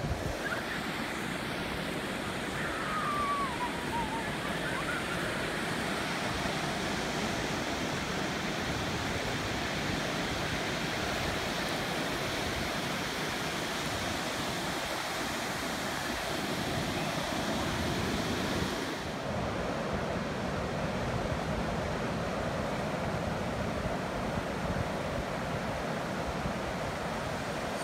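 Ocean surf breaking and washing up a sandy beach: a steady rushing noise. There is a brief faint falling whistle about three seconds in, and the rush changes tone slightly about nineteen seconds in.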